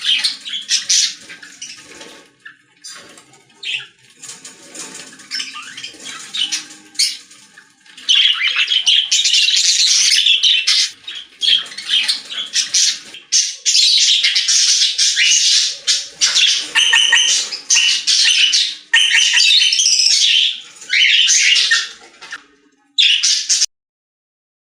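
Lovebirds and budgerigars chattering and squawking, many shrill calls overlapping. The calling is softer at first, turns loud and dense about eight seconds in, and cuts off abruptly just before the end.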